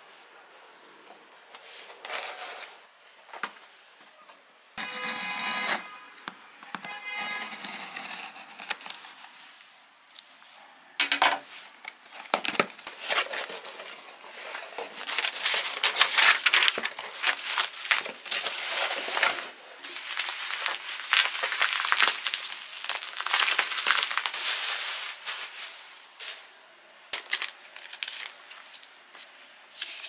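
A cardboard parcel being unpacked by hand. Packing tape rips off the box twice in short rasping pulls, then bubble wrap crinkles and rustles as it is handled, loudest midway.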